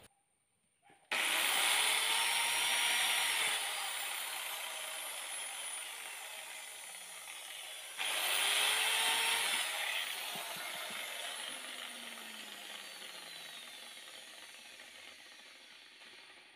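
Corded electric drill boring into a coconut shell. It starts abruptly about a second in, cuts for a couple of seconds, then its whine slowly falls away; it starts again about halfway through and winds down the same way.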